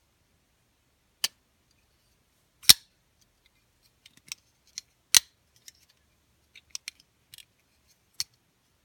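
Todd Begg Bodega flipper knife being flipped open and closed on its IKBS ceramic bearings, giving sharp metallic snaps as the blade swings out and locks up against the titanium lock bar or drops into its detent. There are four main snaps, the middle two loudest, with lighter handling and detent clicks between them.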